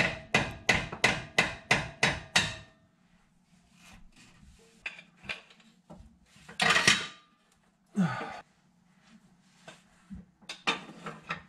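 A hammer tapping a long screwdriver wedged between the CV axle's inner joint housing and the transmission: a quick run of about ten ringing metal strikes, about four a second, to break loose the C-clip that holds the axle in the transmission. After that come a few scrapes and knocks from working the axle.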